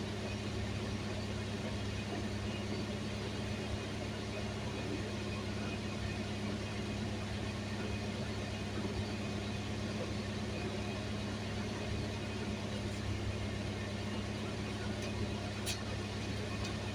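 Steady low drone and noise of a car running, even throughout, with a single sharp click near the end.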